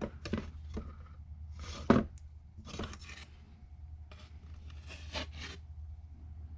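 Short, irregular scrapes as 3M 08243 plastic repair adhesive is smeared over ABS sheet; the adhesive is already setting up and stiff, so it drags rather than spreads.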